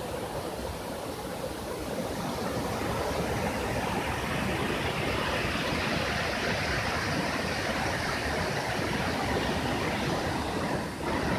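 Waterfall with water falling and rushing in a steady, even wash of noise, with a brief dip in level near the end.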